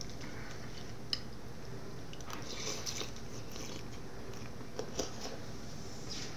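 Metal spoon clinking sharply against a small glass bowl twice, about a second in and again near five seconds, with close-up eating and chewing noises between, over a steady low hum.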